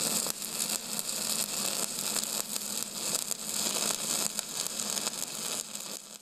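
Steady crackling hiss, strongest in the treble, with a low hum beneath it; it fades out near the end.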